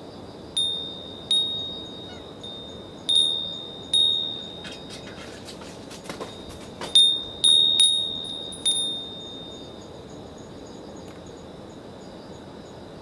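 Japanese fūrin wind bell ringing in the breeze: a run of single clear, high strikes, each ringing out and fading, with a brief jangle of several quick strikes in the middle; it falls still a few seconds before the end. Insects chirp faintly and steadily behind it.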